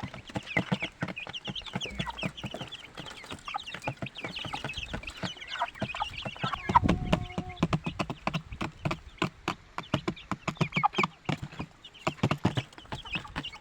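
A brood of week-old chicks peeping, many short rising chirps overlapping, with quick sharp taps throughout. About seven seconds in, a louder, lower sound.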